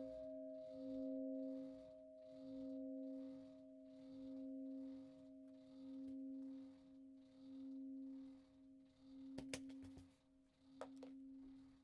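The largest bronze bell of a three-bell Friulian swinging peal (De Poli foundry, cast 2002) hums faintly as its ring fades after being rung. The hum swells and fades about every second and a half as the bell swings itself to rest. A few sharp clicks come near the end.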